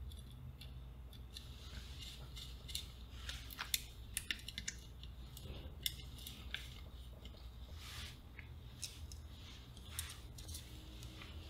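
Small screwdriver and fingers handling a transistor radio's plastic case and screws: faint, irregular clicks, taps and light scrapes, with a few sharper ticks, over a steady low hum.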